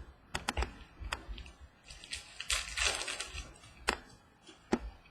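Trading cards being handled between calls: several sharp clicks and snaps, with a longer crinkling rustle about two to three seconds in.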